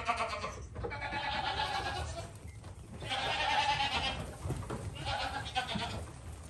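Goat kids bleating, about four wavering calls of around a second each, some overlapping.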